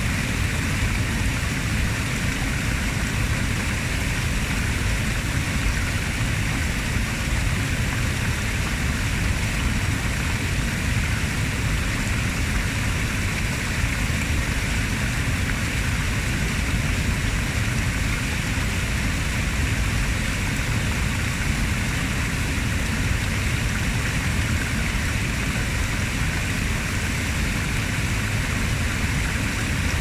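Small waterfall on a chalk stream, its water splashing steadily over a stone ledge into the pool below.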